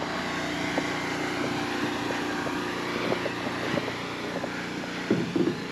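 Truck engine idling steadily, with a few light clicks and knocks over it.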